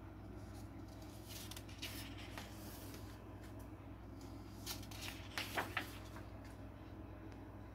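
Pages of a picture book being turned by hand: two papery rustles, the second ending in a few sharp page flaps.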